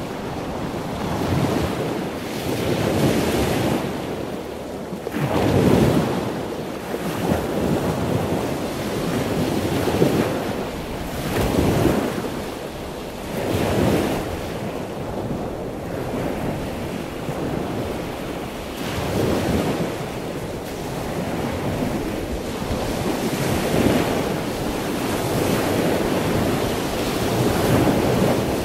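Sea waves washing in and out with some wind, a rushing noise that swells and fades every few seconds.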